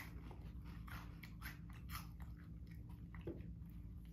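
Someone chewing a crunchy spicy cheese puff ball: a run of small, irregular crunches, several a second.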